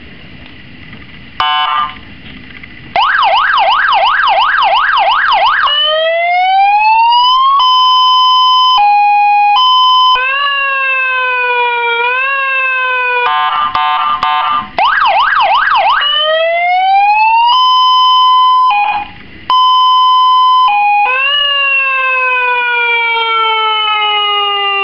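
A 12V electronic siren with a horn loudspeaker (AUDEW 5-sound car and motorcycle siren), switched through its tones in turn. It plays a fast up-and-down warble, slow rising wails, an alternating two-tone hi-lo, a harsh horn blast and long falling sweeps. A short blast comes about a second and a half in, and the siren sounds steadily from about three seconds in.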